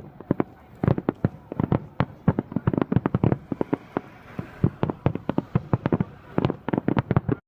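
Fireworks shells bursting in quick succession, heard from about 2 km away: a dense run of sharp bangs, several a second, that cuts off suddenly near the end.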